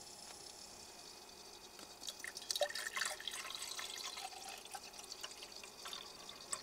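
Water poured from a plastic bottle into an electric kettle, a splashing trickle with small drips that starts about two seconds in and tapers off near the end.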